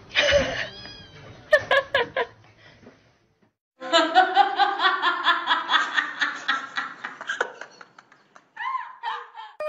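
A person laughing hard in quick repeated bursts, about four a second, for several seconds. Before it come a few short knocks and a brief high gliding cry.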